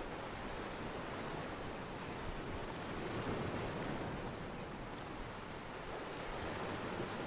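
Steady wash of gentle surf on a beach. A faint run of short, high bird peeps comes in over it from a couple of seconds in.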